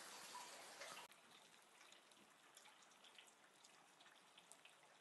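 Near silence: faint scattered drips and ticks of water. A faint hiss in the first second cuts off suddenly about a second in.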